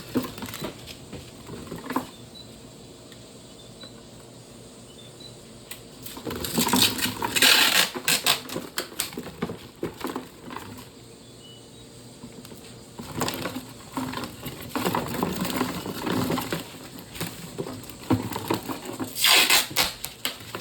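Packing tape pulled off its roll in several noisy bursts and pressed onto a cardboard shipping box, with knocks and rustling from handling the box.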